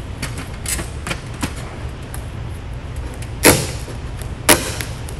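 Adhesive vinyl graphic and its paper backing liner crinkling and snapping as they are handled: a few light clicks in the first second and a half, then two louder crackles about three and a half and four and a half seconds in.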